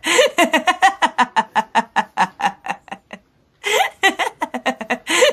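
A person laughing hard in a long run of rapid 'ha' pulses. The laugh breaks off about three seconds in, then starts again.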